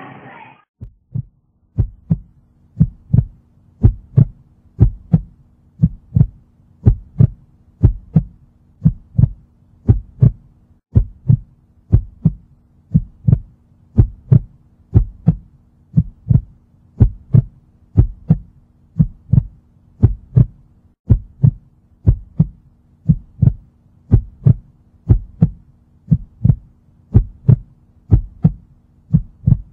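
Heartbeat sound effect: a steady double thump, about one beat a second, over a faint low hum.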